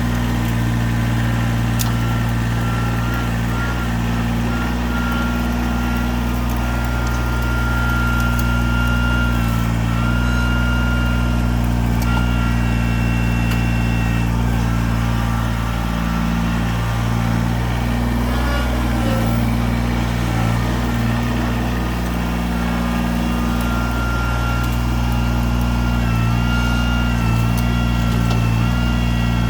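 Kubota BX23 sub-compact tractor's three-cylinder diesel engine running steadily, with small changes in engine speed and a thin high whine above it.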